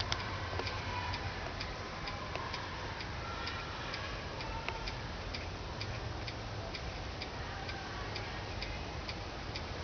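Steady ticking, about three clicks a second, over a low hum and faint distant voices.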